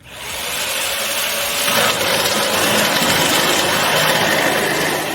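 Electric jigsaw switched on and cutting a board: loud, steady motor and blade noise that starts suddenly and shifts slightly in tone about two seconds in.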